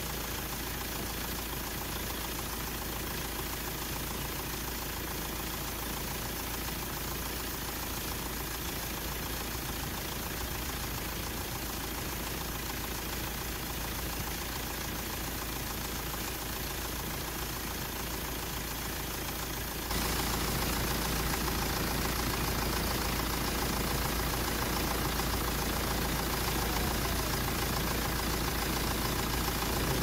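BMW 3 Series E90 engine idling steadily, with the air conditioning running, heard from the open engine bay. The sound steps up a little in level about two-thirds of the way through.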